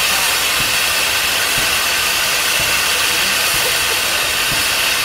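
Steam venting from the boiler of a 1906 Frick steam tractor, a steady, unbroken hiss.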